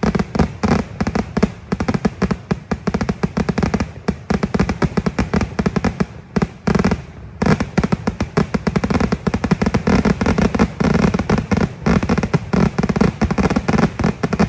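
Fireworks display (vedikkettu): a rapid, continuous barrage of firecracker explosions, many bangs a second, with a brief lull about six seconds in before the barrage resumes.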